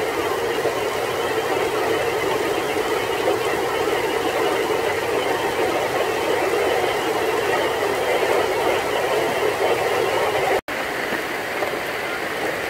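Heavy tropical downpour, a steady loud hiss of rain drumming on a tarp canopy overhead. The sound breaks off for an instant about ten seconds in.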